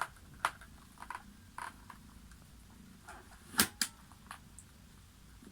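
Plastic clicks and snaps of a YOHE SRT-950 modular helmet's chin bar being opened and latched shut, a handful of scattered clicks with the loudest sharp double click about three and a half seconds in.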